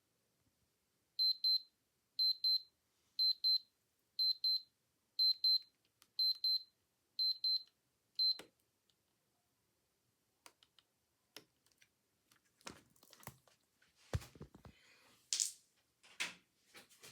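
Digital watch alarm beeping at a high pitch: bursts of a few quick beeps, about one burst a second, eight bursts in all, stopping about eight seconds in. Scattered clicks and handling rustles follow.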